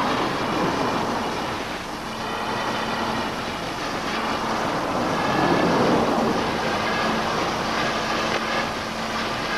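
Gas welding torch flame burning with a steady rushing hiss while heating steel, with a faint steady low hum under it.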